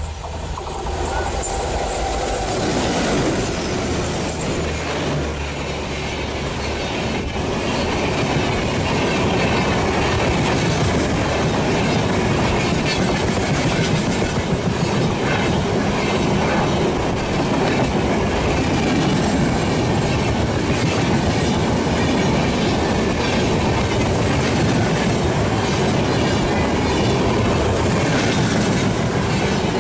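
A diesel-hauled passenger train passes close by at speed. The locomotive's engine swells in about two to three seconds in, then the long rake of coaches rolls past with a steady rhythmic clatter of wheels on the rails.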